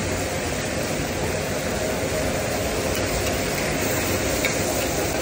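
Kaleji (liver) frying in oil on a large flat tawa griddle: a steady sizzle.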